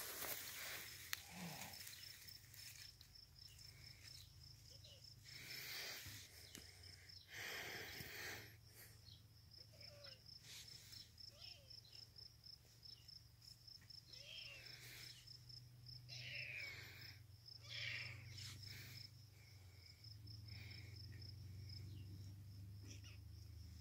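Faint outdoor quiet with an insect chirping in a steady, even pulse throughout, a few brief rustles of grass a few seconds in, and some faint short calls in the middle stretch.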